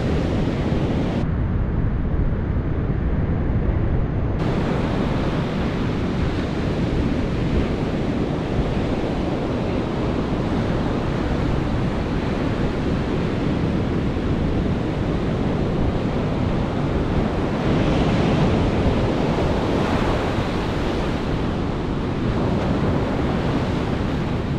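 Ocean surf breaking and washing on a sandy beach, a steady roar of waves with wind buffeting the microphone. A wave washes in a little louder about eighteen seconds in.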